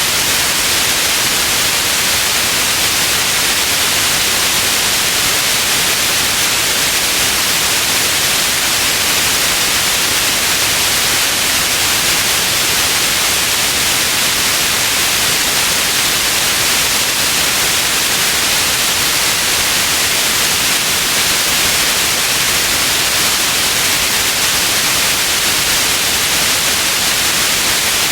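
Steady white noise: an even, unchanging hiss, brightest in the upper range.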